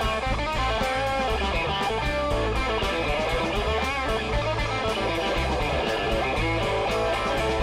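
Live rock band playing: electric guitars, bass guitar and drums keeping a steady beat, with a harmonica played through a handheld microphone cupped to the mouth.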